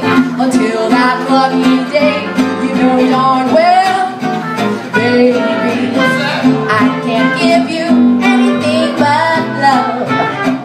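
Live small swing jazz band: a woman singing, with trumpet and acoustic guitar accompaniment.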